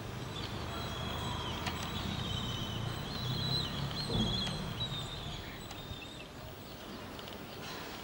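Kites calling: thin, wavering high whistles through the first five seconds or so, with other birds calling, over a low steady rumble.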